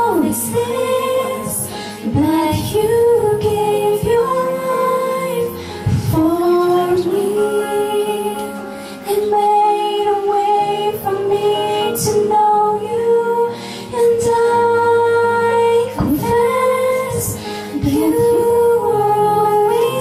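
A woman singing a slow Christian worship song about the cross, with long held notes over instrumental accompaniment.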